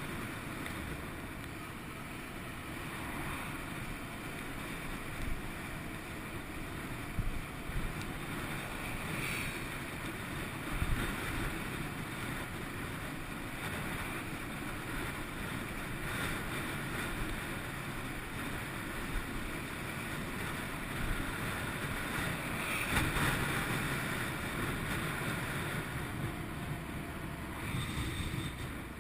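Steady wind rush on a helmet-mounted camera while riding a 2011 Honda VFR800 VTEC motorcycle, its V4 engine and road noise underneath, with a few brief louder swells.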